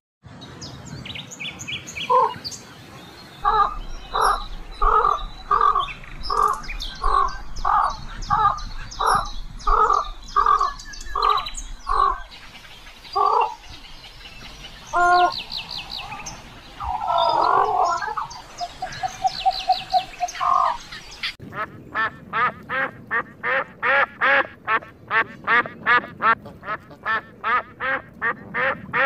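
Waterfowl calling in quack-like calls: an evenly spaced run of about two calls a second, a single longer held call, then a faster run of about three calls a second near the end.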